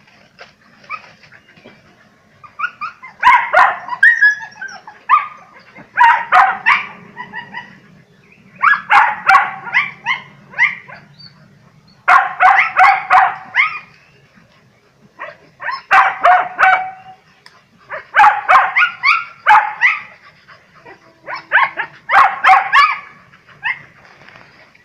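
Dogs barking in rapid volleys, about eight bouts a second or two long with short pauses between, at an animal they have treed.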